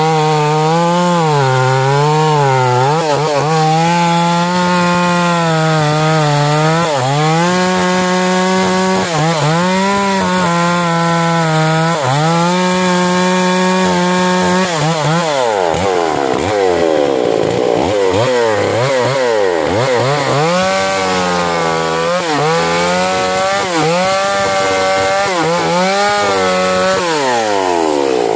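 Stihl 044 two-stroke chainsaw cutting into a standing white teak (jati putih) trunk, the engine note wavering under load. About halfway through, the note starts dipping sharply and climbing back again and again.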